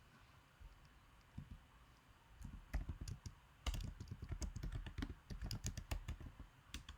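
Computer keyboard typing: a few scattered keystrokes, then a quick run of keystrokes from about two and a half seconds in until near the end, as a terminal command is typed.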